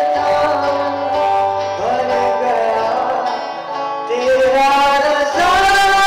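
A male voice singing live into a microphone, with long held notes and slides up in pitch, over acoustic guitar accompaniment.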